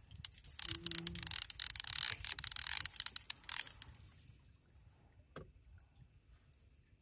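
Fishing reel clicking in a dense, rapid run for about three and a half seconds while a sturgeon is on the line, then fading to a few faint ticks.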